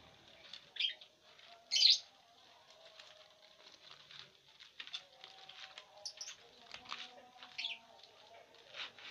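Lovebirds giving short, sharp high calls, the loudest about two seconds in, over a dry rustle and small clicks of corn husk being torn and picked at with their beaks.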